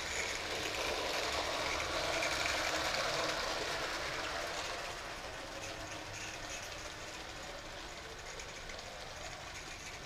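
Bassett-Lowke Enterprise live-steam O-gauge locomotive and its tin coaches running on tin track: a steady mechanical rattle that is loudest as the train passes close, about two to three seconds in, then fades as it runs away around the curve.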